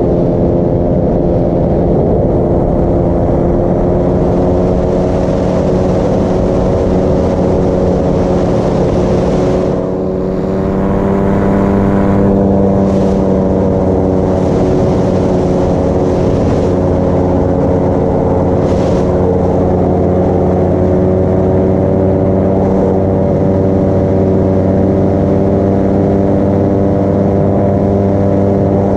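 Paramotor engine and propeller running loudly and steadily, with a brief dip in pitch and level about ten seconds in before it picks back up.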